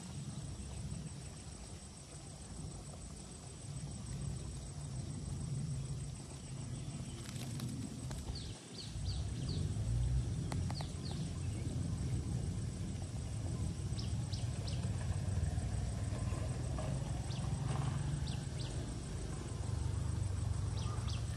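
Rural outdoor ambience: a low wind rumble on the microphone, with scattered short high bird chirps and a faint steady high tone.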